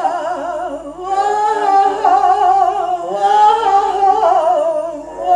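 A woman's wordless jazz vocal line, hummed through long held notes with a wavering, vibrato-laden pitch, in a sparse laptop-programmed demo track.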